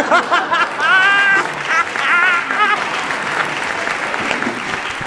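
Applause rising after a punchline, with loud, wavering laughter over it in the first three seconds. The clapping runs on steadily after the laughter fades.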